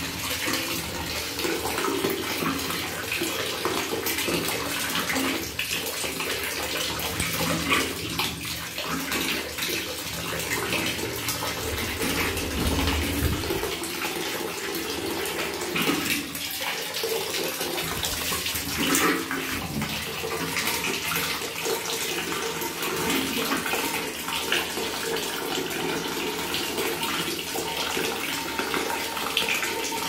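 A thin stream of tap water pouring steadily into a full plastic bucket, with a parrot bathing in the falling water, splashing as it spreads its wings and tail.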